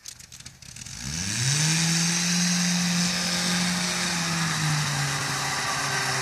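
Small four-wheel-drive off-roader's engine revving up about a second in and held at high revs as it spins its wheels and slides around in circles on snow, with a steady hiss over it; the revs ease off slightly near the end.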